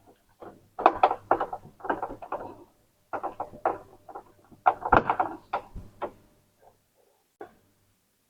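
Plastic knocks and clicks from handling an Epson EcoTank inkjet printer's casing and covers, in irregular clusters that thin out near the end.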